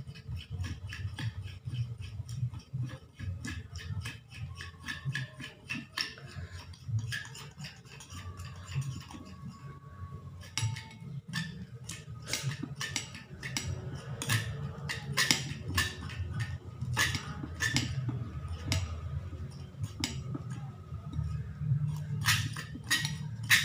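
Metal spoon stirring and scraping sticky glue slime in a ceramic bowl, with irregular clicks and taps of the spoon against the bowl that grow louder and more frequent about halfway through, as the mixture clumps together.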